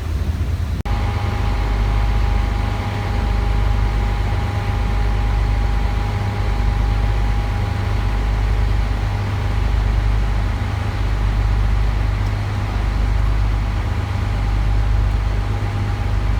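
Boat engine running steadily with a constant whine, under a heavy low rumble of wind buffeting the microphone that swells and eases. The sound changes abruptly just under a second in.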